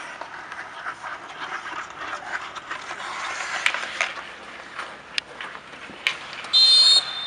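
Bandy game on outdoor ice: skates scraping and sticks knocking the ball in a run of sharp cracks, then a short, loud, shrill referee's whistle blast near the end, signalling a stop in play for a free stroke.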